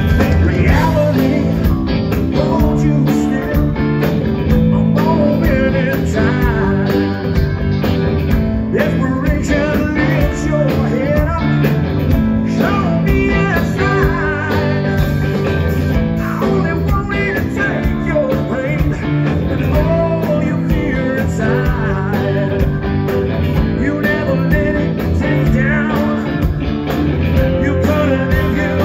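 Live blues-rock band playing a song, electric guitar to the fore over bass, drums and keyboard, with a male voice singing in places.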